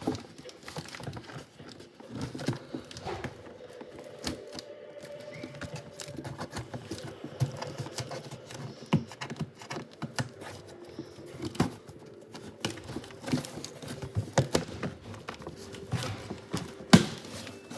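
Cardboard shipping box being opened and handled by hand: irregular taps, knocks and scrapes of cardboard and packing, with one sharp knock near the end.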